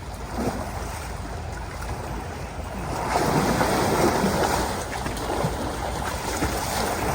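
Water rushing and splashing, with wind noise on the microphone. It gets louder about three seconds in and eases off again a couple of seconds later.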